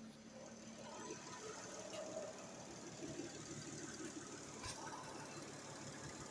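Peugeot ES9A V6 petrol engine idling steadily and faintly, with a single light tap about four and a half seconds in.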